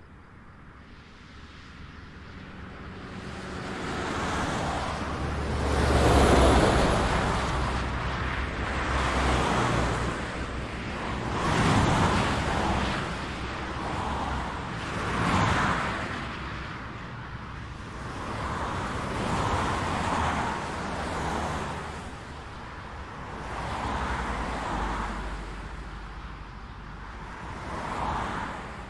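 Highway traffic, with cars passing one after another, each pass a rise and fall of tyre and engine noise. The loudest pass, about six seconds in, carries a heavy low rumble.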